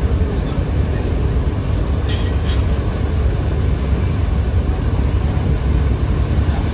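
Large diesel passenger river launches running at speed side by side: a steady, loud low engine rumble mixed with rushing water and wash.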